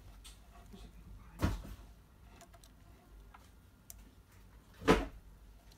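Plastic parts of an airsoft MP5 hop-up unit being handled and fitted together: light ticks and rubbing, with two louder sharp knocks, one about a second and a half in and one about five seconds in.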